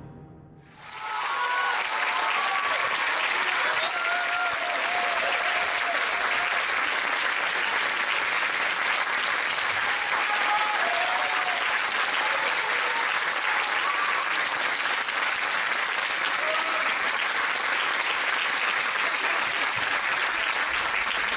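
Large theatre audience applauding, rising quickly about a second in and then holding steady, with a few voices calling out over the clapping.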